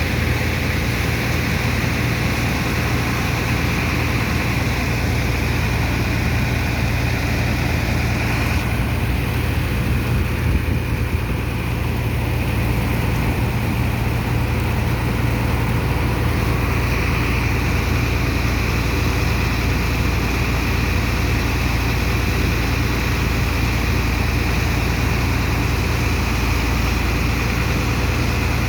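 Heavy engine and pump machinery of a sand-unloading dredger running steadily, a constant low hum under a wash of noise. The higher hiss drops back for several seconds about nine seconds in, then returns.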